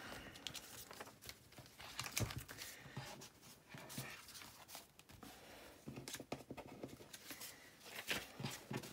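Faint rustling of paper and card with scattered light taps and clicks as craft supplies are moved about on a desk.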